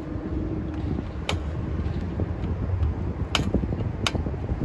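A few sharp clicks from a 2005 Toyota Corolla's rear drum brake as the shoe adjuster is worked to set the new shoes, over a steady low rumble.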